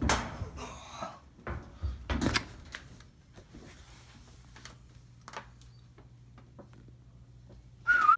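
Knocks and clatter of household objects being moved and handled, loudest in the first couple of seconds, then scattered light clicks over a faint steady hum. A short squeak with a bending pitch comes near the end.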